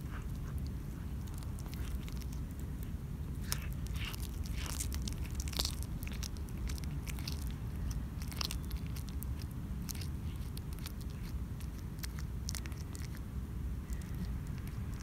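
Domestic cat chewing and biting into a dead rat: irregular wet crunches and sharp clicks of teeth, closely miked, over a steady low rumble.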